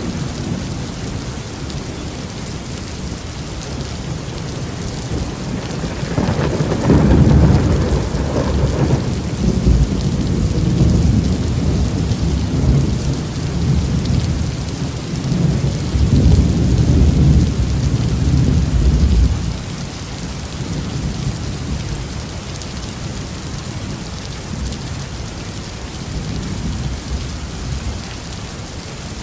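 Heavy rain falling on a roof, a steady hiss, with a long deep rumble of thunder that swells about a quarter of the way in, lasts about twelve seconds, and dies away.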